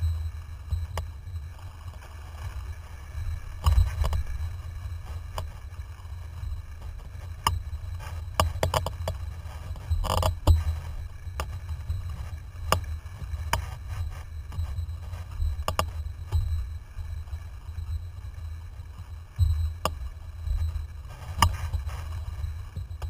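Wind buffeting a boom-mounted camera on a windsurfer under sail, a steady low rumble, with irregular sharp knocks and splashes as the board hits the chop.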